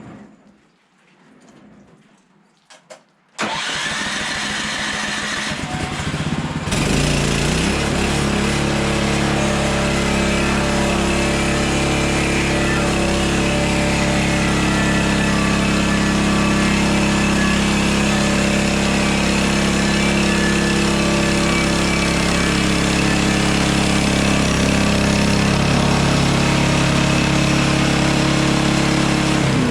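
Hudson Hunter portable bandsaw sawmill's engine starts abruptly about three seconds in. A few seconds later it steps up to a louder, higher running speed and runs steadily.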